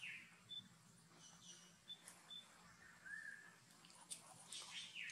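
Near silence with a few faint, short high-pitched animal chirps and squeaks, including a brief falling squeak at the start and another just after the middle.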